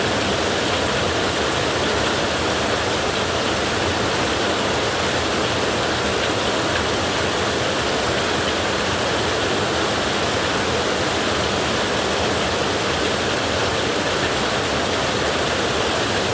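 Heavy rain falling on a tin roof: a steady, unbroken hiss with no thunder.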